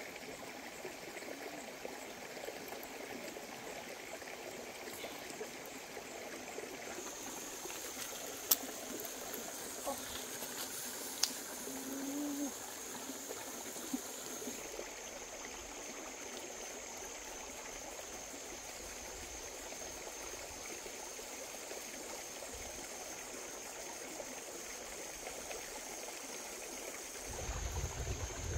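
A stream running steadily, with a few sharp clicks around the middle.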